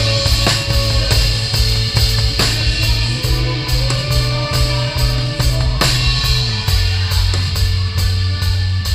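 Live rock band playing: drum kit beats and electric guitar over sustained low bass notes, which change about two-thirds of the way through.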